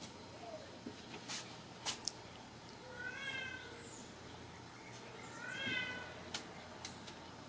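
Ragdoll kittens mewing twice in high-pitched mews, about three seconds in and again near six seconds. Scattered light taps and knocks come in between.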